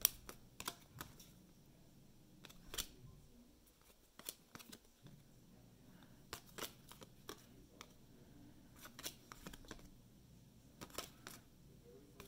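Cardboard trading cards being flipped and slid one by one from hand to hand, giving soft, irregular clicks and flicks of card edges, about one or two a second.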